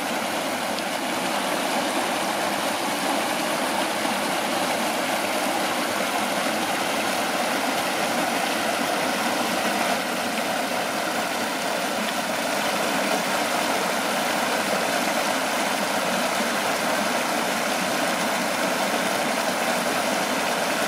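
River water rushing steadily over a low weir and churning into white water below.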